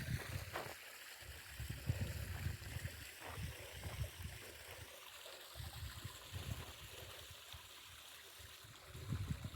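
Wind buffeting the microphone in irregular low rumbles over a steady hiss, cutting off suddenly at the end.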